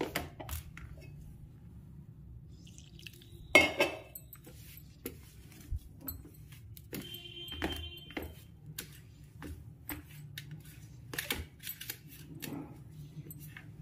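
Hand kneading crumbly flour dough in a stainless steel plate: scattered soft knocks and scrapes of fingers against the metal. Two louder clinks make the plate ring, one about three and a half seconds in and another around seven to eight seconds in.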